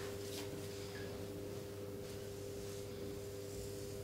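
Quiet room tone dominated by a steady electrical hum made of several unchanging tones, with a few faint, brief rustles.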